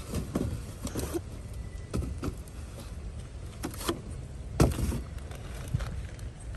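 Cardboard boxes and bagged rubbish being rummaged through and lifted out of a plastic wheeled trash bin: scattered rustles, scrapes and knocks, with the loudest thump about four and a half seconds in.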